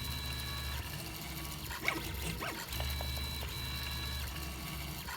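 3D printer running a print, its stepper motors whining in steady tones that stop and start as the print head changes direction, over a low hum that drops out briefly and returns partway through, with a few light ticks.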